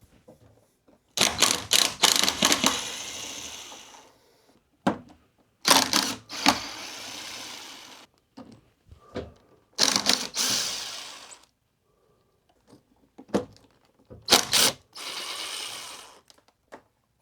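A hex-bit driver backing out the four 5 mm hex screws that hold an electric unicycle's hub motor: four separate bursts of mechanical clicking and whirring, each fading out, with pauses between screws. The screws are Loctited, so each needs a firm break-loose before spinning free.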